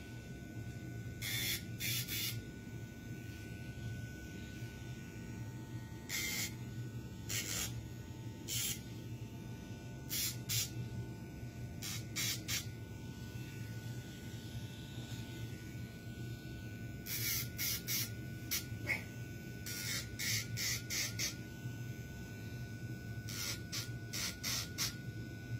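Dremel rotary nail grinder running with a steady high whine. Short rasping bursts come in clusters as the spinning sanding drum touches a puppy's toenail, and the whine dips briefly at each touch.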